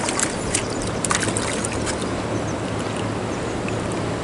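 Steady rush of a river flowing over rocks, with a scatter of light sharp clicks in the first two seconds.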